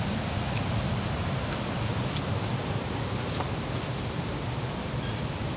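Steady rain falling, an even hiss with a low rumble beneath, with a few faint ticks here and there.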